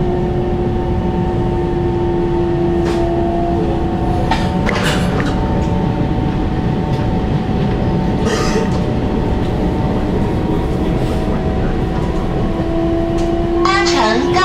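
Taiwan Railway EMU700 electric multiple unit heard from inside the carriage: a steady running rumble with a few short clicks. The traction motors' whine drops away about four and a half seconds in and comes back rising in pitch near the end as the train picks up speed.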